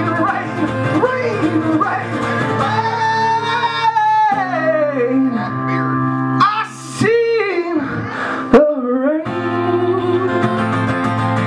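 A man singing with long, sliding held notes over a strummed steel-string acoustic guitar in a live performance. The voice stops about nine seconds in, leaving the guitar strumming on its own.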